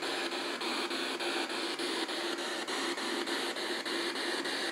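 P-SB7 spirit box radio sweeping through the FM band, heard through an external speaker: steady radio static broken by a faint click at each station step, about three or four a second.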